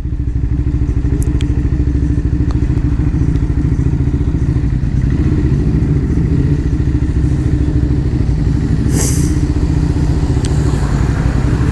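Motorcycle engine running steadily under way, with wind and road noise over the microphone; a short rush of hiss about nine seconds in.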